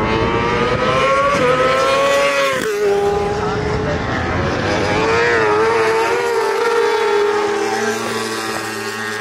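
Honda Fireblade superbikes' inline-four engines at high revs on track. The engine note climbs as a bike accelerates, drops suddenly a little under three seconds in, then holds a high, slightly wavering note as the bikes run through a corner.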